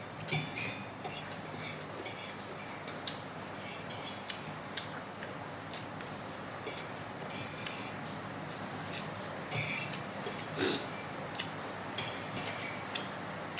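Close-up eating sounds: instant noodles being slurped off a fork and chewed, in short irregular bursts, with a fork now and then clinking against a steel plate.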